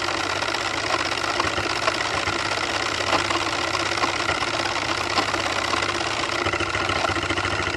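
Small model steam engine running steadily aboard a radio-controlled model steamboat, a fast, even mechanical beat.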